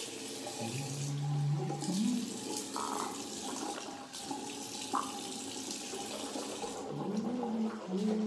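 Tap water running into a bathroom sink, stopping about a second before the end, with a low wavering tune underneath.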